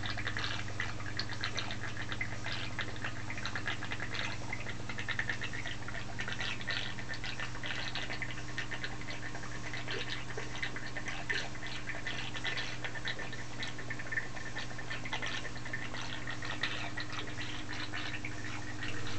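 Garden pond fountain pump circulating CNC coolant, running with a steady low hum. Over it, the coolant stream trickles and splashes onto the machine table in an irregular crackle.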